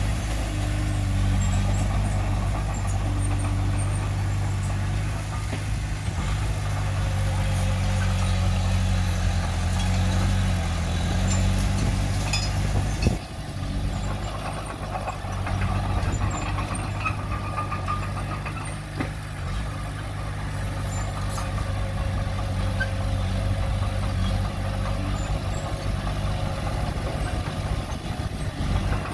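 Diesel engine of heavy earthmoving equipment running steadily, its note shifting as the load changes. A single sharp clank about halfway through, after which the engine briefly runs quieter.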